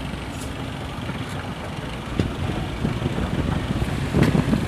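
Vehicle engines running in slow road traffic, with a lorry and motorcycles close by: a steady low rumble that grows louder near the end.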